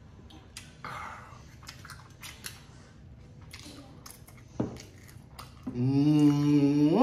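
Close-up eating sounds: chewing with small wet clicks and lip smacks. Near the end, a loud drawn-out hummed groan ('mmm'), held on one note and then rising and falling in pitch.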